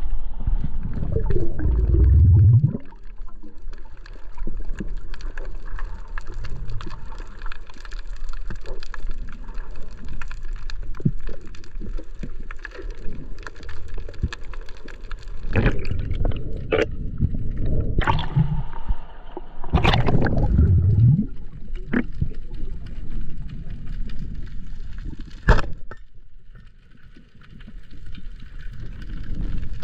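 Water sloshing and splashing over a camera at the sea surface for the first few seconds, then muffled underwater noise as it goes under, with scattered clicks and a few louder thumps and swishes, and one sharp click a few seconds before the end.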